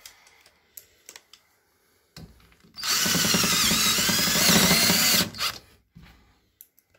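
Cordless drill-driver driving a 32 mm self-drilling countersunk screw through the crossbar into the frame profile of a mosquito-net window guard. It starts about two seconds in and runs for about two and a half seconds before stopping abruptly. A few light clicks of handling come before and after.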